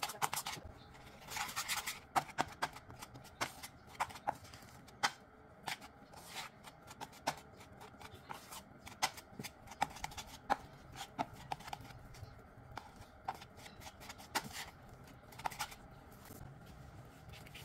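Spatula stirring and scraping cookie dough in a mixing bowl, folding flour into creamed butter and sugar, with irregular light taps and clicks against the bowl about once a second.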